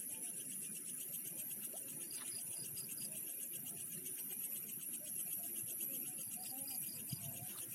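Night insect chorus: crickets keep up a steady, high-pitched rapid trill, with a few short chirp series from other insects. A low rough noise lies underneath.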